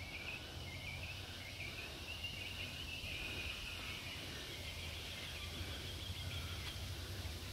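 Bushland ambience: a continuous high, wavering chirping from wildlife in the trees, over a low rumble.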